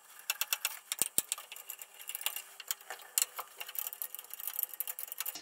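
Screwdriver backing out the screws of an oscilloscope's rear panel: a quick, irregular run of small metallic clicks and scrapes.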